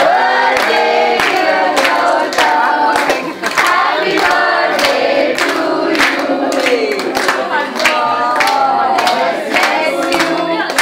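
A group of people singing together and clapping along in a steady beat: birthday-party singing around a cake, about two claps a second.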